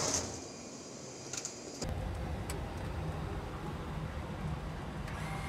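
A few light clicks and rustles, then, from about two seconds in, the steady low hum of an airliner cockpit on the ground with its ventilation and systems running; a faint steady whine joins near the end.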